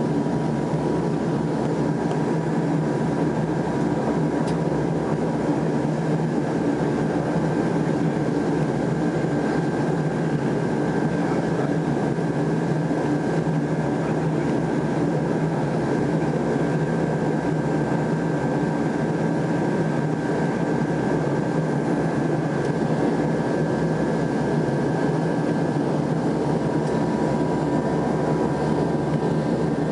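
Turboprop engine and propeller running steadily, heard from inside the aircraft's cabin as it taxis. There is a constant low drone with a steady high whine over it.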